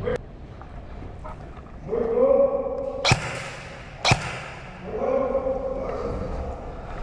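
Two sharp airsoft gun shots about a second apart, each between long drawn-out voice calls.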